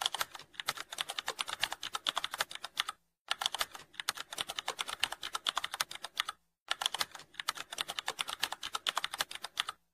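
Computer keyboard typing sound effect: fast, even key clicks that pause briefly about three seconds in and again a little before seven seconds, keeping time with text typed out on screen.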